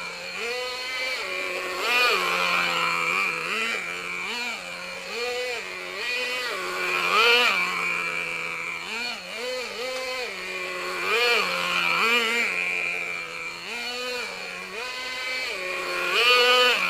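Small glow-fuel nitro engine (VRX .18) in a radio-controlled Thunder Tiger Sledgehammer car, revving up and dropping back to idle again and again as the throttle is blipped. The engine is still in break-in, on only its third tank of fuel.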